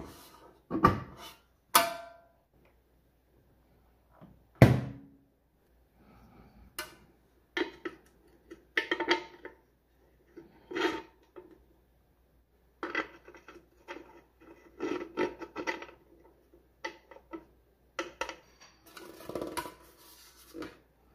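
Bread maker's metal bread pan being handled: a few sharp clunks and knocks as it is lifted, the loudest about four and a half seconds in, then scattered clatter and rubbing as it is turned over in the hands.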